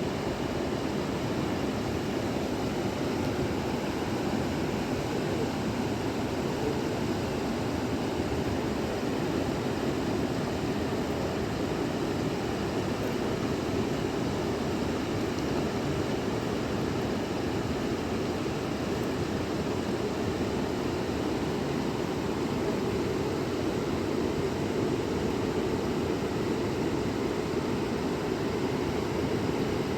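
Steady rushing of a fast-flowing river, an even wash of water noise that does not change.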